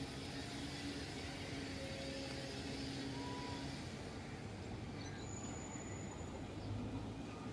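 Steady outdoor background noise, with a faint low hum through the first half.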